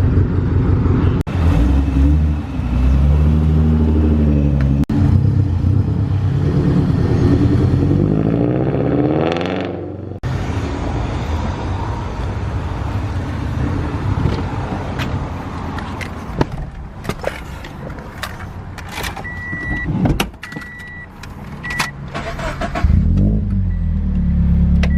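Car engine running and revving, its pitch rising and falling several times. After a break, a few short electronic beeps sound in the middle, and the engine revs again near the end.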